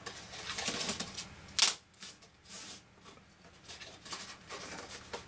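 Cardstock rustling and scraping as a box's sides are folded in and pressed together by hand, with one sharp click about one and a half seconds in.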